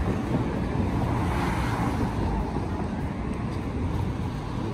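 City street noise at an intersection: steady traffic with wind rumbling on the microphone, swelling briefly about one and a half seconds in.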